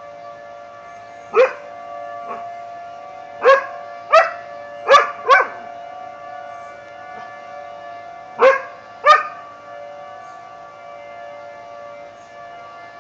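Tornado siren sounding at a steady pitch throughout, with a dog giving about eight short, sharp barks over it, mostly in pairs, during the first nine seconds or so.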